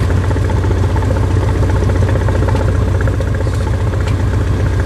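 Cessna R172K Hawk XP's six-cylinder Continental IO-360 engine and propeller running steadily at low power, a constant low drone.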